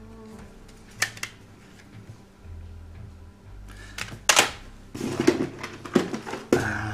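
Plastic CD jewel cases being handled: a single click about a second in, then a run of sharp clicks and clacks from about four seconds in as a case is shut and the next is picked up.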